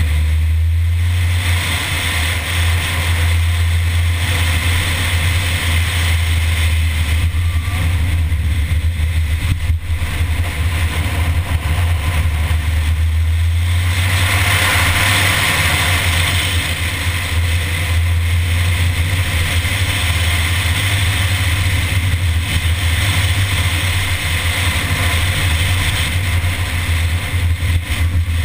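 Mini car driving at speed on a winding road: the engine runs under a steady low rumble of wind rush on a bonnet-mounted microphone, getting louder for a few seconds about halfway through.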